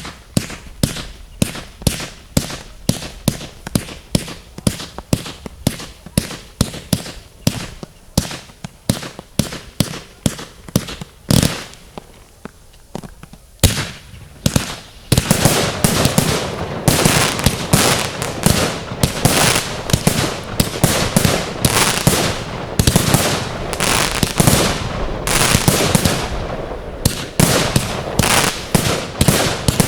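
Fireworks display going off: sharp bangs about two or three a second, then a short lull with a few single bangs, then from about halfway a dense, louder barrage of overlapping bangs and crackle.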